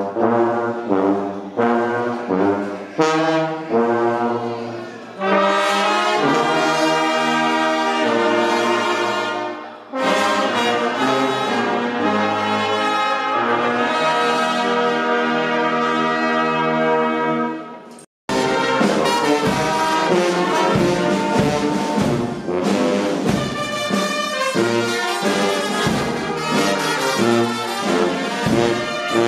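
Brass band playing a slow, hymn-like tune of held chords. About eighteen seconds in, the music breaks off abruptly and a busier, faster brass passage begins.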